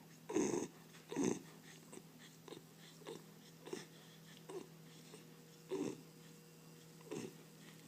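Bull terrier snoring in its sleep: about eight short, piglike snores at uneven intervals of roughly a second, the first two loudest, over a faint steady hum.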